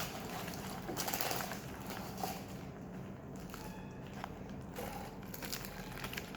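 Close-up eating sounds: crunchy bites and chewing of fried chicken, with scattered crackles and some crinkling of food wrapping.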